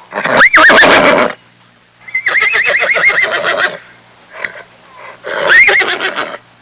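A horse neighing three times, each whinny rising in pitch and then wavering.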